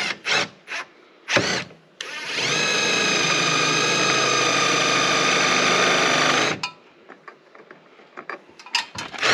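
Power drill driving a screw into a wooden 2x4: a few short trigger blips, then the motor spins up and runs steadily for about four and a half seconds before stopping abruptly, and starts again at the very end.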